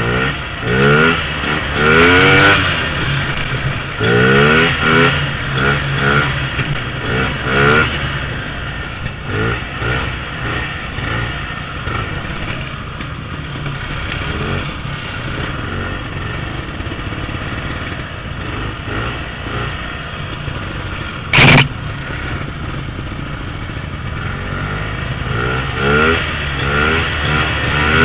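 Vintage snowmobile engine running under way, revving up and easing off over and over in the first several seconds and again near the end, with steadier running between. About three-quarters of the way in there is one brief sharp knock.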